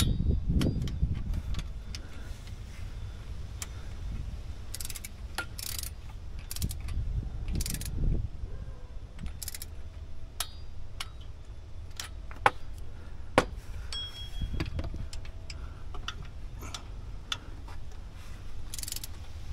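Torque wrench ratcheting and clicking on the water pump bolts of a GM LS-style engine as they are brought to 11 foot-pounds: scattered sharp metal clicks, with two louder clicks about a second apart a little past the middle.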